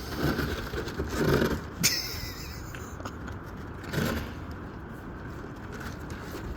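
Wind buffeting the microphone in a steady low rumble, with a few short scuffling noises and one sharp scrape about two seconds in.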